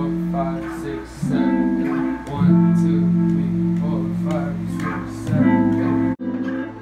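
Guitar played live, strummed chords ringing out and changing every second or two. The sound breaks off suddenly near the end.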